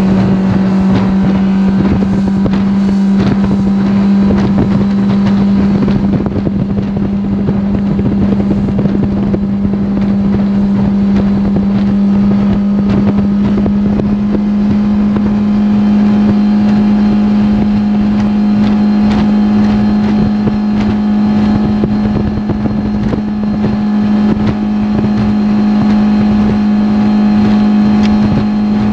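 Outboard motor of a G3 Sportsman 1810 aluminum bass boat running at wide-open throttle near its 48.5 mph top speed. A steady high engine note creeps slightly higher in pitch, over wind and water noise.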